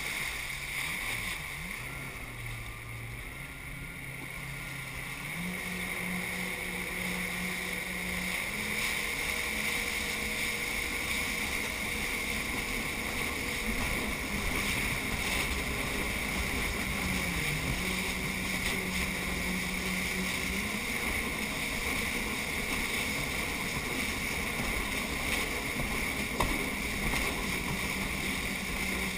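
Jet ski engine running under way over a steady rush of wind and water. Its pitch steps up about five seconds in, dips briefly a little past halfway, then returns.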